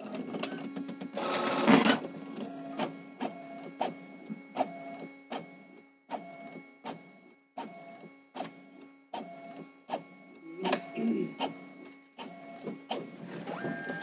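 Brother DCP-T310 inkjet multifunction printer running a copy job. There is a loud rush about a second in, then a steady motor hum broken by regular sharp clicks, about one and a half a second, as it prints.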